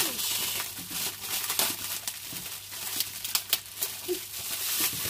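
Thin plastic bags crinkling and rustling with irregular crackles as hands pull at and work open a knotted bag of kimchi.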